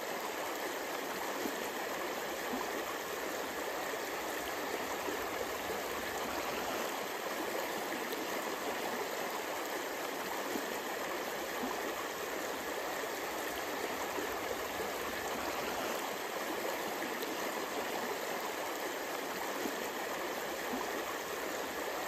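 Steady rush of flowing river water, an even hiss with no break or change.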